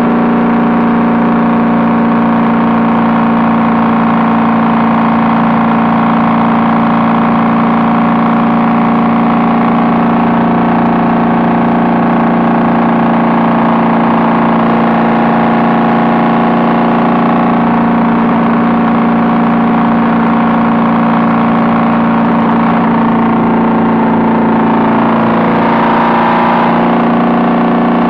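Honda Valkyrie's flat-six engine running steadily through Cobra six-into-six exhaust pipes while the motorcycle is ridden, its pitch wavering briefly near the end.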